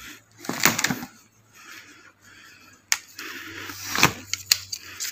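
Arrows being handled and pulled from a cushion target: a series of sharp clicks and knocks, the loudest about half a second in and about four seconds in, with lighter ticks near the end.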